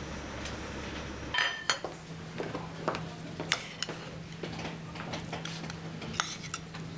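Tableware clinking at a restaurant table: metal spoons, bowls and cups knocking against dishes in a scattering of short, sharp clinks. For about the first second a steady low rumble runs under it, then stops abruptly.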